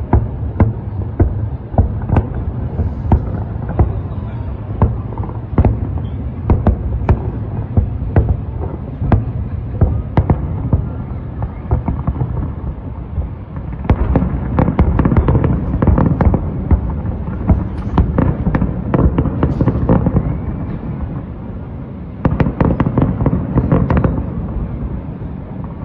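Fireworks display: a rapid, unbroken string of bangs and crackles over a low rumble. It thickens into a denser barrage about halfway through and again near the end.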